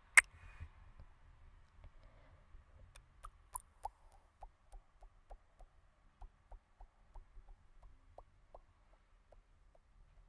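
ASMR mouth sounds: soft tongue clicks in a steady series of about three a second, after one sharp click just after the start and a few crisper clicks.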